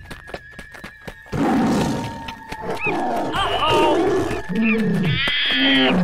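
Cartoon sound effects: about a second of rapid, even clicks like running footsteps over a steady tone, then a sudden, louder jumble of animal roars and calls that glide up and down in pitch.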